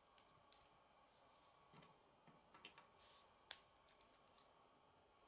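Faint, sharp clicks of plastic K'nex rods and connectors being handled and snapped together, about ten in all at uneven intervals, the loudest about three and a half seconds in.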